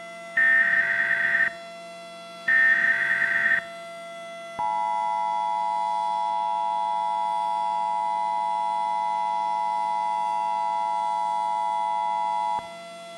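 Emergency Alert System tones: the last two of the three warbling SAME header data bursts, each about a second long. About a second later the steady two-tone EAS attention signal sounds for eight seconds and cuts off sharply, leaving a steady electrical hum.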